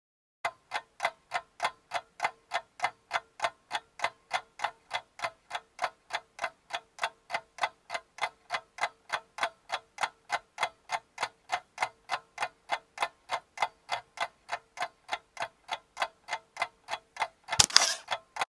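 Clock-like ticking sound effect, evenly paced at about three ticks a second over a faint steady tone. A brief, louder burst of noise comes just before the end.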